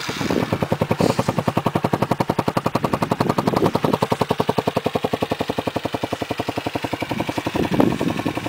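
Honda XR125's single-cylinder four-stroke engine idling steadily with an even, rapid putt-putt beat from the exhaust.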